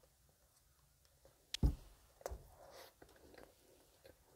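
Quiet, close-up mouth sounds of biting into and chewing a soft steamed sweet potato bread. A sharp click comes about a second and a half in, and a softer one follows shortly after.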